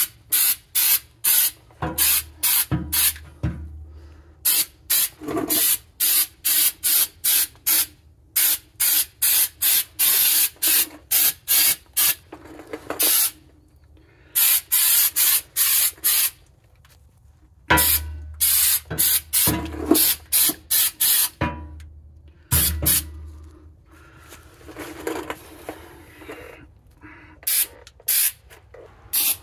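Aerosol can of 3M rubberized undercoating spraying in many short hissing bursts, most a fraction of a second long, with a few longer sprays of a second or two.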